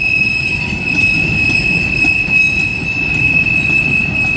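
Freight cars of a long CSX train rolling past, the steel wheels rumbling on the rails under one steady, high-pitched wheel squeal.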